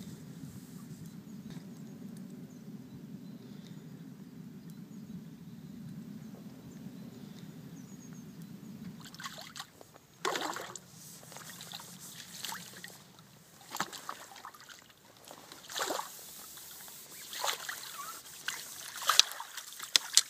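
Splashes from a hooked carp thrashing at the surface close to the bank as it is played towards the net. About ten seconds in, a series of sudden sloshes and splashes begins; the sharpest come about ten seconds in and near the end. Before the splashes start there is a steady low rumble.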